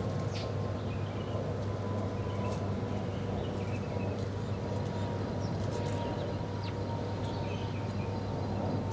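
Small birds giving short, scattered chirps, with a few sharp clicks, over a steady low hum and a thin, steady high tone.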